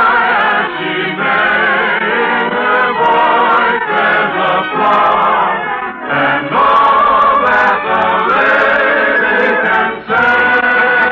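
A choir singing an operetta song with an orchestra, holding long notes with vibrato.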